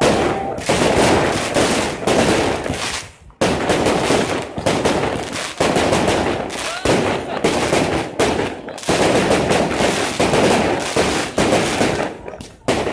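Aerial fireworks bursting in a rapid, almost continuous string of bangs and crackles, broken by a short gap about three and a half seconds in and thinning near the end.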